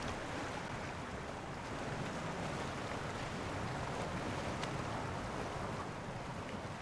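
Steady wash of sea waves with wind.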